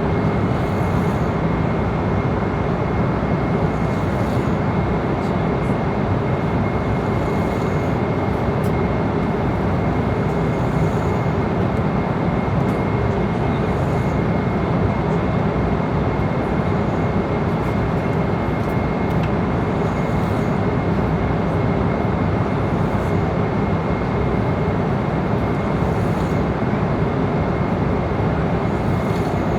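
Airliner cabin noise in cruise at altitude: a steady, loud rush of engine and airflow noise, heaviest in the low end, with a thin steady whine running through it.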